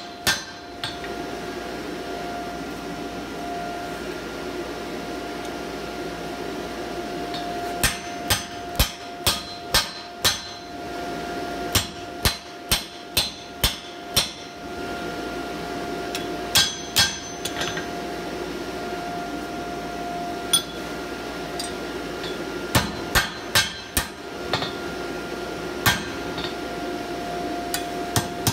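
Hammer striking a handled punch into red-hot steel on an anvil, punching a hole through the box jaw of a pair of blacksmith tongs, in runs of several quick blows with pauses between. A steady hum runs underneath.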